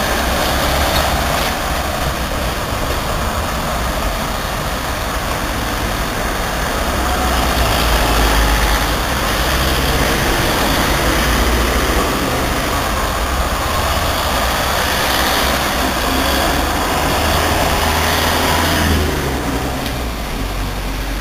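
Ferrocarril de Sóller 1929 electric train running, a steady heavy rumble with faint rising and falling motor whine, dropping away sharply near the end.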